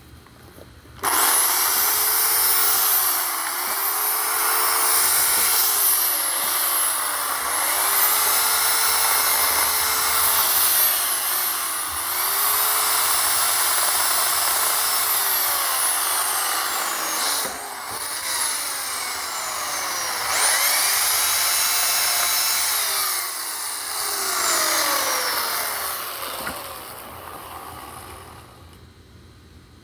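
WEN 16-inch electric chainsaw cutting limbs off a pine tree: its motor whine starts about a second in and sags in pitch each time the chain bites into a limb, recovering between cuts. It stops briefly around the middle, runs again, then winds down near the end.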